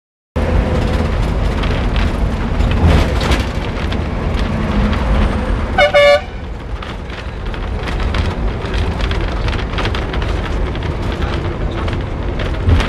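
A bus's engine and road noise heard from inside while it drives along a highway, with one short, loud horn toot about six seconds in.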